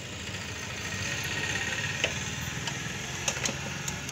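An engine idling steadily, with a few sharp clicks of hand tools on the motorcycle: one about two seconds in and a quick run near the end.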